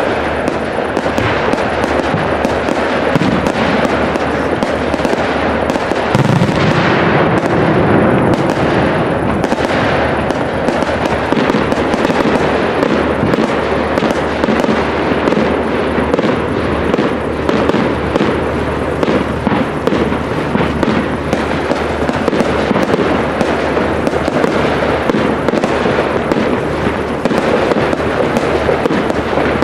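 Aerial fireworks display: a dense, unbroken crackle of bursting shells and bangs, a little louder about six seconds in.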